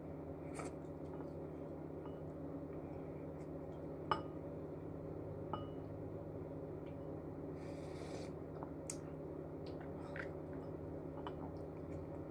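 Eating utensils clinking against dishware: one sharp ringing clink about four seconds in and a lighter one a second and a half later, with a few faint ticks, over a steady low hum.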